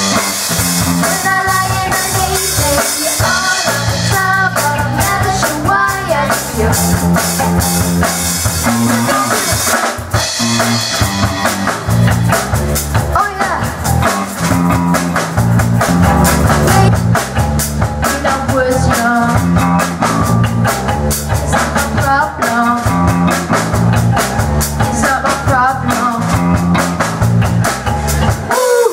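A live band plays a rock song loudly: an electric bass through an Orange bass combo amp and a drum kit keep a steady driving beat, with a melody line above them.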